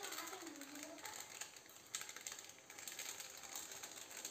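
Metal spatula clicking and scraping against an aluminium wok as noodles are stir-fried and tossed, with a thin hiss behind it.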